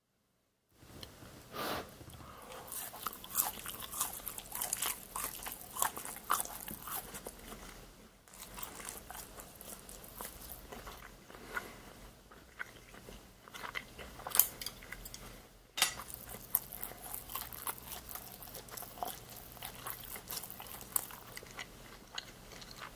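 Someone biting into and chewing crispy deep-fried sweet and sour pork: irregular crunches and crackles, pausing briefly twice.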